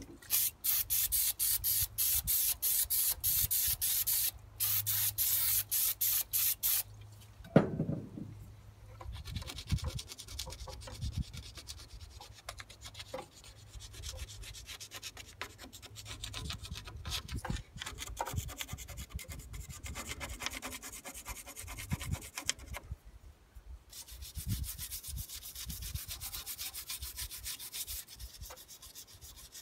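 Aerosol brake parts cleaner hissing out of the can in two long bursts, then a single knock, then a small hand brush scrubbing hardened carbon and old oil off an engine's cylinder top and piston, with an uneven, scratchy rubbing that pauses briefly near the end.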